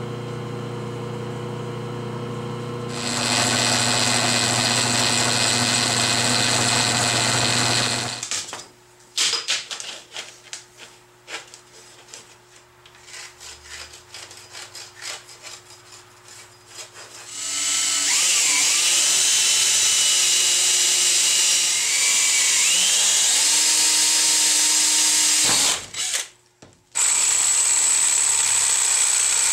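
Jigsaw cutting through large-diameter PVC pipe, running loud and steady in two long stretches, its pitch wavering as the blade loads up, with a brief stop near the end. Between the two cuts come scattered knocks and clatter as the pipe is handled on the bench, and a steady low hum plays at the start.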